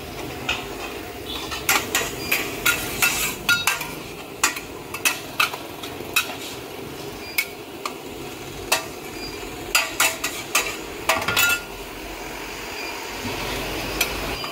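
Metal spatula and ladle clanking and scraping against a wok while rice vermicelli (beehoon) is stir-fried: quick irregular strikes in clusters, with short pauses between.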